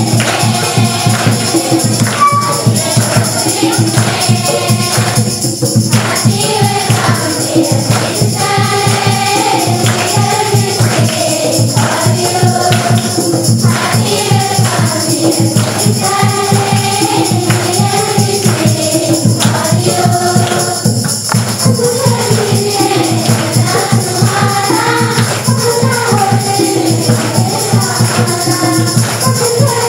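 A group of children singing a song together in unison, over a steady beat of shaken percussion.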